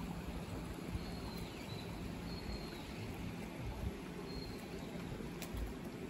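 Steady rush of a shallow stream running over rocks and a low weir. A bird gives short high whistles three times over it.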